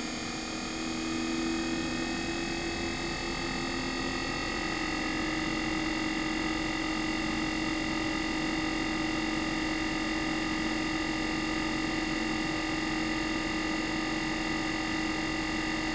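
Inverter compressor of an air-conditioner outdoor unit running, with a steady electronic whine of several held tones. Its pitch creeps up slightly over the first few seconds, then holds steady, and a lower tone drops out about four seconds in.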